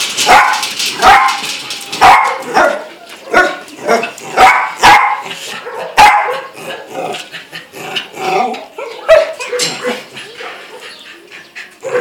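A dog barking in short, sharp single barks, about ten in all, coming quickly for the first six seconds and then fewer and softer.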